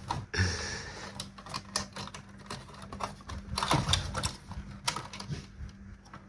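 Irregular small clicks and rattles of pliers and plastic parts as the wiring inside a dismantled radio-cassette CD player is worked at, with a louder clatter about four seconds in.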